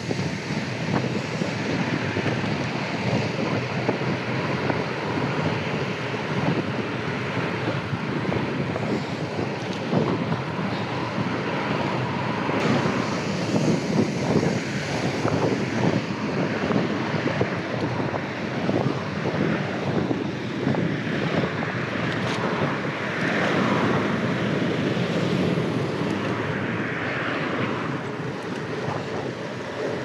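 Wind rushing and buffeting over an action camera's microphone as a bicycle rides along, with frequent small knocks and rattles from the ride.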